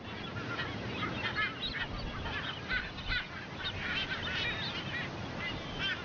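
Seabird colony calling: many birds giving short, overlapping squawks and chirps without a break.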